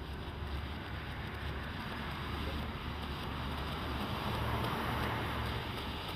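Black Cat smoke can firework burning with a steady rushing hiss that swells slightly about four to five seconds in, over a low rumble of wind on the microphone.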